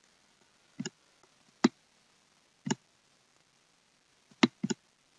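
Computer mouse button clicks: three single clicks about a second apart, then two clicks in quick succession near the end.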